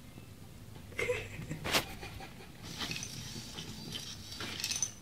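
Cat sniffing and rubbing its head right against the microphone: irregular snuffles and brushing noises starting about a second in, with one sharp, loud rub a little later.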